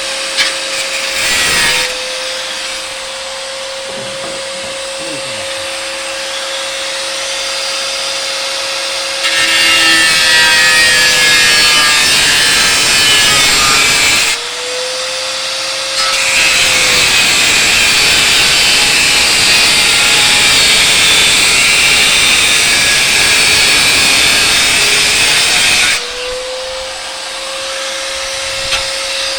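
Handheld grinder running steadily with a high whine, then cutting into material twice for several seconds each, the second time for about ten seconds. The cutting is a loud, harsh grinding noise, and the motor's pitch drops while the disc is under load.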